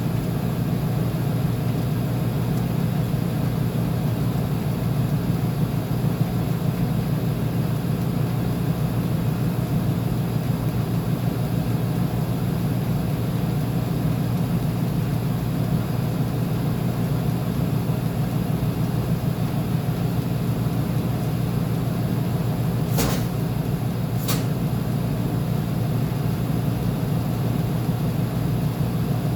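Uni-Mac UniMat 35 (UC35MD2) commercial front-load washer running with a steady low hum. Two short clicks come close together near the end.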